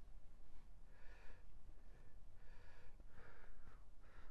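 Marker squeaking across a whiteboard in a series of about five short strokes.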